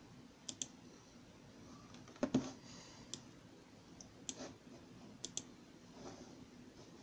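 Scattered sharp clicks and taps at irregular intervals, the loudest a double knock a little over two seconds in.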